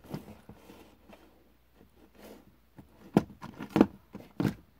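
Small cardboard boxes with plastic windows, holding diecast cars, being handled on a table: faint rustling and light clicks, then three sharp taps in the last two seconds as the boxes are knocked and set down.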